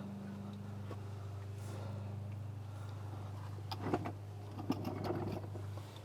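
A few sharp metallic clicks and knocks from hand tools at work on the car's drain plug, in two short clusters about four and five seconds in, over a steady low hum.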